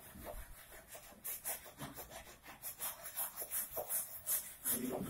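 Rapid rubbing strokes on wood, worked by hand, about four strokes a second, starting about a second in.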